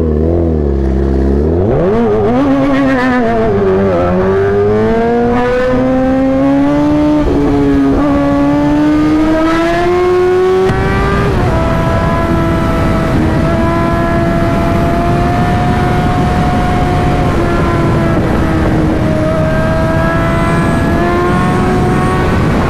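Motorcycle engine at high revs under acceleration, its pitch climbing steadily for several seconds, then holding nearly level as the bike runs at speed.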